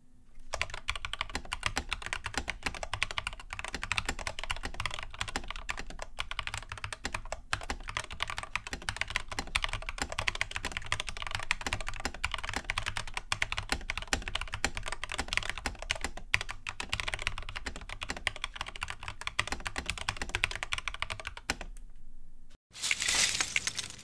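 Fast, continuous typing on a Lofree 1% mechanical keyboard with Kailh Jellyfish switches: a dense stream of key clacks with a few brief pauses, stopping about 21 seconds in. A short, loud burst of noise follows near the end.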